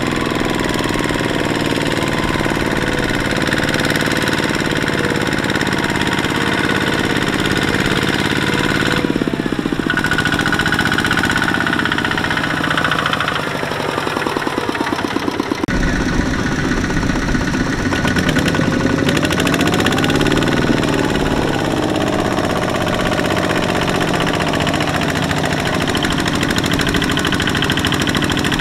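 Kubota RT120 power tiller's single-cylinder diesel engine running hard under load, hauling a loaded trailer through deep mud with a fast, even knocking beat. Its speed sags about halfway through and picks up again a few seconds later.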